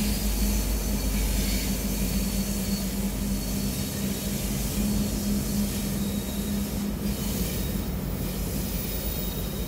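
Rear locomotive of a loaded coal train, a BNSF SD70ACE with its EMD two-stroke diesel, moving away after passing, together with the rumble of the train's wheels on the rails. The deep rumble weakens about four seconds in, and the steady engine hum fades out over the next few seconds.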